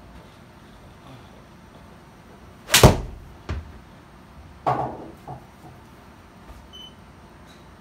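A golf club striking a ball off the hitting mat of an indoor simulator: one sharp, loud crack a little under 3 s in. A softer knock follows about half a second later, and another loud knock with a short ringing tail about two seconds after the strike.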